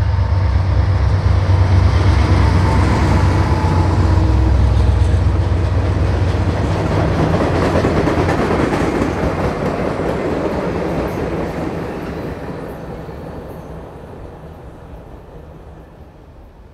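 GE Dash 9-44CW diesel locomotive passing with its engine running, followed by box cars and tank cars rolling by, wheels on the rails. The engine sound dominates the first few seconds, the rolling noise of the cars is loudest about halfway through, then the whole train fades away near the end.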